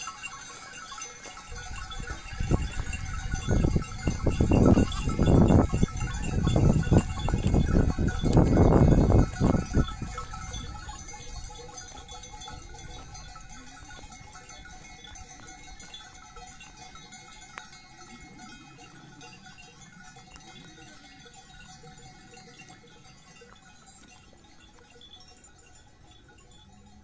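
A flock of sheep bleating, with a loud low rushing noise through the first several seconds; after that the sound gradually fades away.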